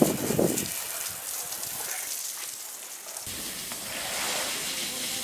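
Water spraying from a garden hose, a steady rain-like hiss; about three seconds in it gives way to hose water splashing on wet paving stones.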